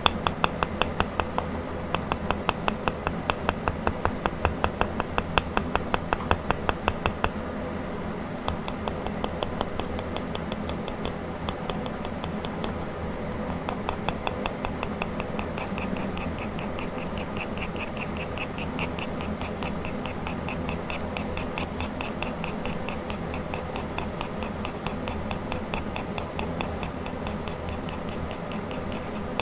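Pencil scratching on paper in quick, short, regular strokes, about three to four a second, louder for the first several seconds and lighter after that.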